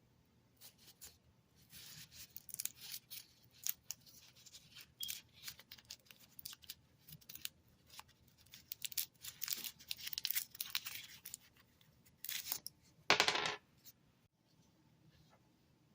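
Crinkling, rustling and clicking of cough-drop packaging being handled and opened, with a louder short tear near the end.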